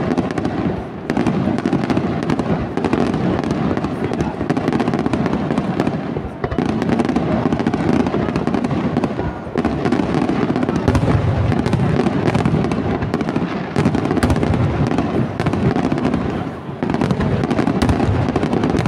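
Aerial fireworks display: shells bursting in a rapid, continuous run of bangs and crackle, with brief lulls about a second in, around six seconds, and shortly before the end.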